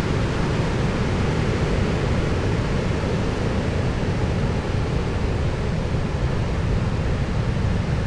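Steady rushing noise of wind and sea, heaviest in the low range and unbroken throughout.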